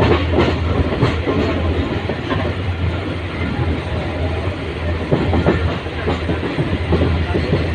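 Mehran Express passenger coach running along the track, heard from aboard: a steady rumble with the clatter and knocks of the wheels over the rail joints.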